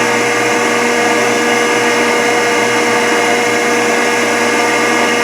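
Rockford hydraulic planer running, its hydraulic pump giving a steady whine with a strong single tone and a mechanical hum under it.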